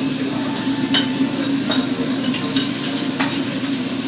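Lomo saltado sizzling as it is sautéed and stirred in a hot pan. Three sharp clicks of the cooking utensil against the pan come at about one second, just under two seconds and just over three seconds in.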